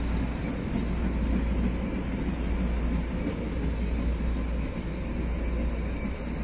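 Electric TE-90 light rail train running along the track: a steady rumble with a strong low hum and no distinct knocks or changes.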